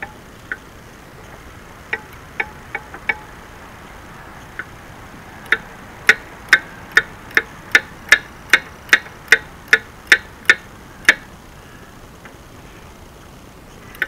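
Ratchet wrench clicking as the nut on the track tensioner's grease fitting is tightened. A few scattered clicks come first, then an even run of sharp clicks, about two a second, which stops about eleven seconds in.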